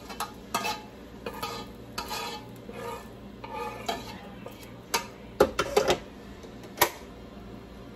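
A spoon scraping and clinking against a pan while browned ground beef with green pepper and onion is scooped out, with a few sharper knocks late on and one near the end.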